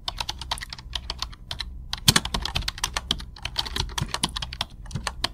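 Keyboard typing clicks, rapid and irregular with a few brief pauses, over a low steady hum: a typing sound effect matched to on-screen text typing itself out.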